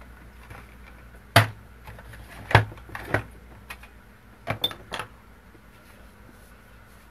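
Art supplies being handled and set down on a wooden tabletop: a series of about six sharp knocks and taps. The two loudest come early, and a quick cluster of smaller taps follows a few seconds later.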